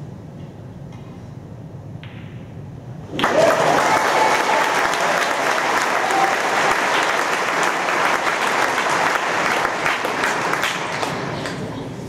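Audience applauding, breaking out suddenly about three seconds in and fading away near the end.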